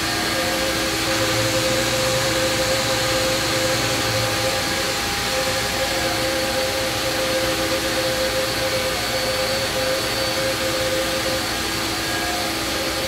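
Fadal VMC4020HT vertical machining center running, giving off a steady whir with several held tones over an even hiss.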